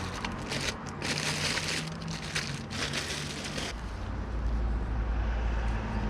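Irregular metallic scraping and crunching as the new rear wheel bearing hub is worked into place on a Citroën C1's rear axle, over about the first three and a half seconds, followed by a steady low rumble.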